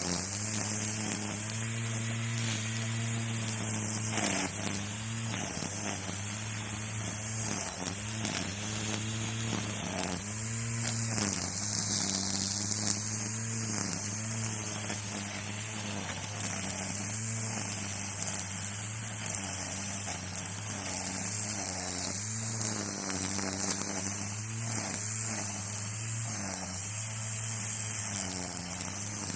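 String trimmer (weed eater) running continuously, with its motor note sagging briefly every few seconds as the spinning line bites into the weeds, over a steady high whirring hiss from the line.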